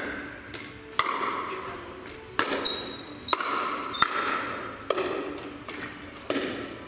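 Pickleball rally: paddles hitting a hard plastic pickleball with sharp pops, about one every second or less. Each pop rings on in the echo of a large hall.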